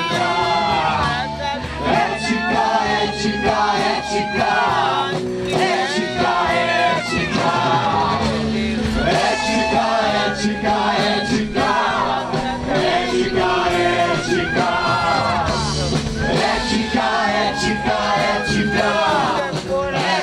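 Live band playing a song with voices singing over it.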